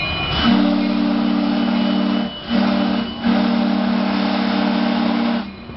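Train horn sounding three blasts, long, short and then long, as a locomotive moves slowly through a yard. Steady rolling rumble runs underneath.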